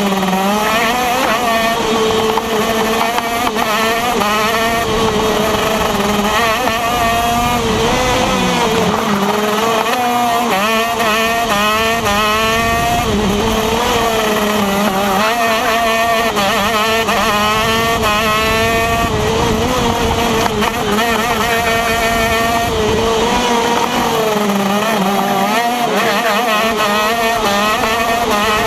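TM KZ10 125cc two-stroke shifter kart engine heard onboard at racing speed, its pitch climbing again and again and falling off between climbs as the kart accelerates and slows through the street circuit's corners.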